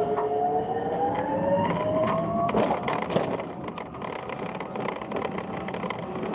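Electric forklift's drive motor whining and rising in pitch as the truck speeds up, with rattling and clicks from the truck and its load about two and a half seconds in.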